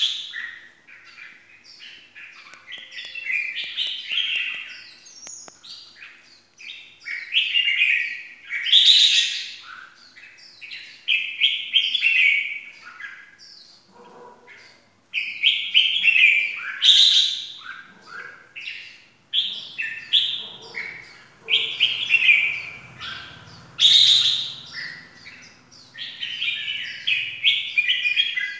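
Red-whiskered bulbul singing in its cage: bursts of short, chirpy warbled phrases over and over, broken by a louder, sharper call about every seven or eight seconds.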